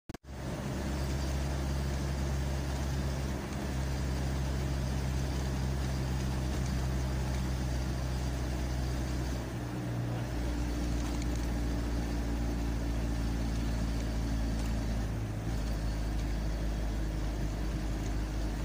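Steady low hum of a running motor-vehicle engine, its tone shifting slightly about halfway through and again later.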